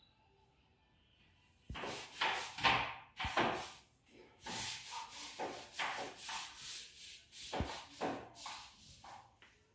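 Repeated rubbing and rustling close to the microphone, with a few soft knocks. It starts about two seconds in after a near-silent opening and fades just before the end.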